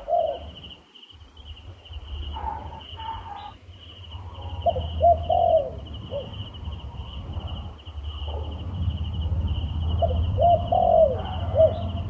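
Turtle dove cooing in short phrases of rising-and-falling notes: once at the start, again about five seconds in, and a longer run in the last few seconds. Under it runs a steady high pulsing trill and a low rumble.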